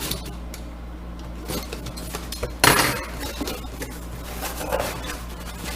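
A new part being unpacked and handled: light clinks and rattles, with one sharp knock a little before the middle.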